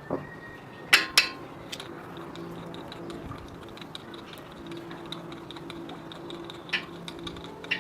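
Metal hand tools clinking and clicking on a hard surface: two sharp clinks about a second in, then scattered lighter ticks and another clink near the end.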